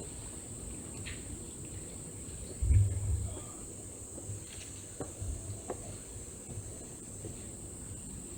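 A steady, high-pitched chorus of crickets chirring without a break. A low rumble comes about a third of the way in and is the loudest sound, and a few faint knocks follow.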